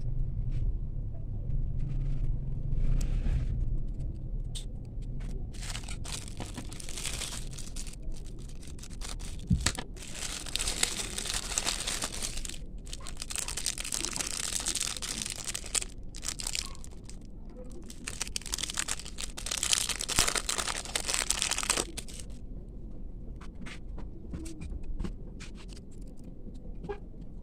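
Packaging being crinkled and torn open by hand, long stretches of rustling with scattered small clicks and taps.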